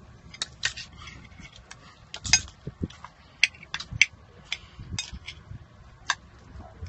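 Metal spoon clinking and scraping against a ceramic bowl while scooping up adobo scallops, a string of irregular sharp clicks.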